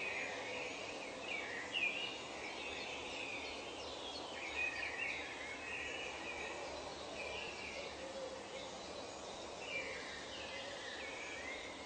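Birds calling in short chirping, warbling phrases over a steady background hiss of nature ambience, in clusters near the start, from about four to seven seconds in, and again around ten seconds in.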